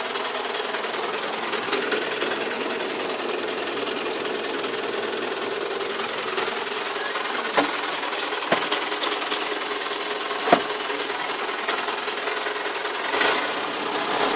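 Belarus 920 tractor's four-cylinder diesel engine running steadily under ploughing load, with a few sharp knocks or clunks a little past halfway.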